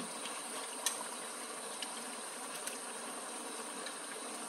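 Jackfruit curry simmering in a pan with a steady soft hiss, with a few light clicks of a spatula against the pan as it is stirred.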